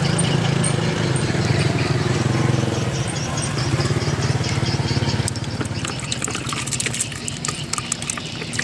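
A motor vehicle engine running steadily close by, weakening after about three seconds. From about five seconds in, a quick run of sharp clicks and rattles.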